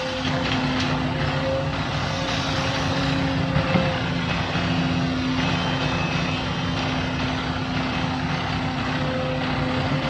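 Heavy machine's diesel engine running steadily at a constant pitch, with a few faint knocks.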